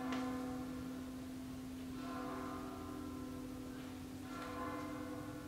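Soft background music: a low note held throughout, with new chords struck in at the start, about two seconds in and again about four and a half seconds in.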